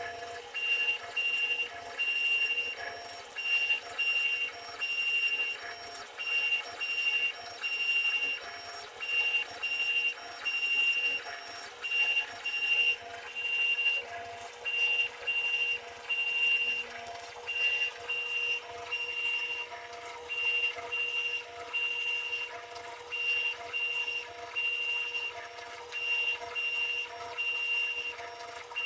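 Stepper motors of a homemade two-axis CNC drill press whining in short, repeated start-stop moves as the machine positions and drills a pine board, over a steady hum.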